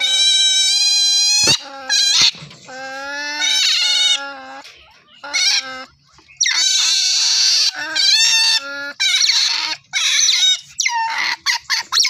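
Otters calling over and over with high-pitched squeals. It opens with one long steady whistle, then shorter wavering calls, and from about six seconds in the calls turn harsher and screechier.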